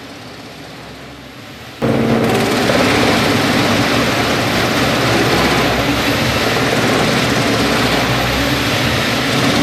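Large wood chipper running: a quieter steady engine hum, then about two seconds in a sudden jump to a loud, steady, dense mechanical noise of the machine at work.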